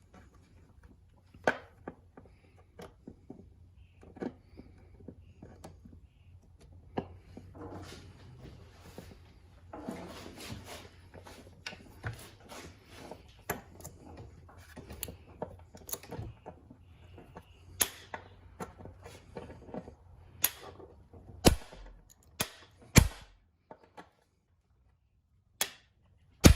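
Scattered metal clicks and tool clatter with several loud single blows, the loudest in the last few seconds: a hammer striking a hand impact driver to break loose seized screws on an outboard motor.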